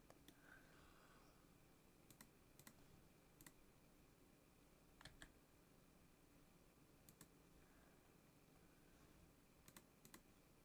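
Faint, scattered clicks from a computer keyboard and mouse, about ten in all, some in quick pairs, over a low room hum.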